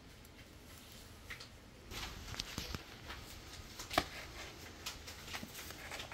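Scattered light clicks and rustles, starting about two seconds in, with a few short clinks; the sharpest clink, about four seconds in, rings briefly.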